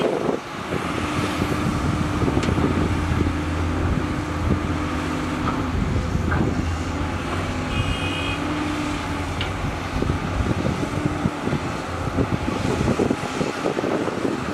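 Diesel engines of several Hyundai R220LC-9S crawler excavators running steadily under load while digging. Occasional faint knocks are heard, and there is a short high beeping about eight seconds in.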